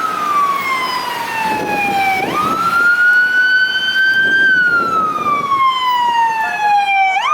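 Emergency vehicle's electronic siren on a slow wail. The pitch falls steadily for about two seconds, jumps up sharply, climbs slowly, then falls again, with the sharp jump coming about every five seconds.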